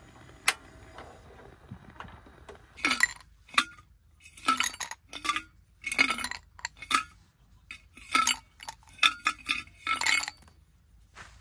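Dishes and utensils clinking as they are handled: a single sharp tick, then a run of short clinks and clatters, some of them ringing briefly.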